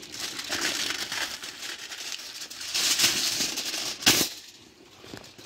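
Crinkling and rustling of wrapping being handled, a dense run of small crackles, with one sharp knock about four seconds in.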